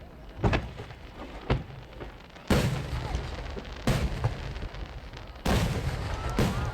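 Large twelve-inch aerial firework shells bursting one after another: about six sharp, dry booms, the loudest about two and a half and five and a half seconds in, each trailing off in a low rumble.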